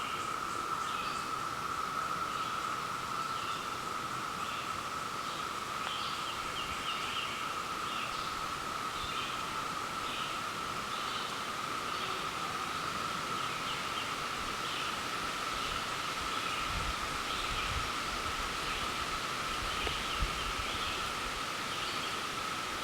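Chorus of Brood X periodical cicadas: a steady, unbroken, high drone from many insects singing together.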